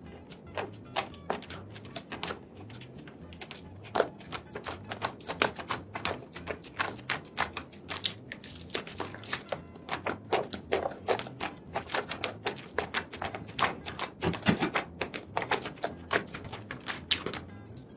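Eating sounds of a person chewing sauce-covered seafood: rapid, irregular wet chewing and lip-smacking clicks, several a second.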